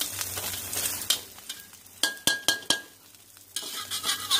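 Egg omelette sizzling in hot oil in a wok, broken about two seconds in by a quick run of about five sharp clinks of the spatula against the wok, one ringing briefly. The sizzle drops away for a moment and comes back near the end.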